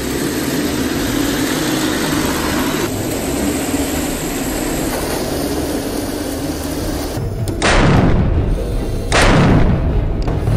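A steady rumble, then two loud cannon-fire booms about a second and a half apart, each dying away over about a second.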